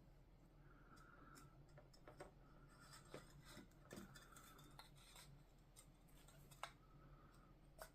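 Faint workshop handling sounds: scattered light clicks and a few short stretches of soft rubbing or scraping, over a steady low hum.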